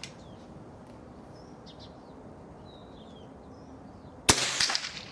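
A single .22LR rifle shot from a Winchester 67A single-shot bolt-action with a 27-inch unsuppressed barrel, firing a Winchester Super X hyper-velocity hollow point: one sharp report about four seconds in, with a short echo trailing off. Birds chirp faintly before it.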